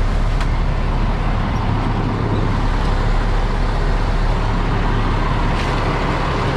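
Peterbilt 337 tow truck's diesel engine idling steadily, with a faint click about half a second in and another near the end.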